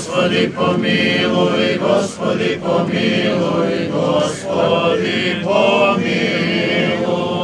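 Serbian Orthodox liturgical chant sung by a group of voices, in phrases of long held notes with short breaks between them.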